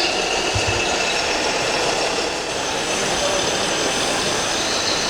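Steady engine sound of a radio-controlled model truck running at low revs over the constant background din of a busy exhibition hall.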